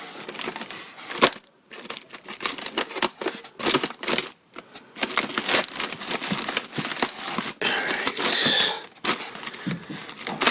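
Packing tape being cut with a hobby knife and peeled off a plane kit's styrofoam packaging and parts: irregular crinkling, scraping and tearing, with a longer tearing stretch about eight seconds in.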